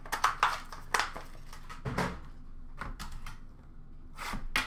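Hands handling a cardboard trading card box and cards: irregular clicks, taps and light rustling, with a quick cluster of taps near the end.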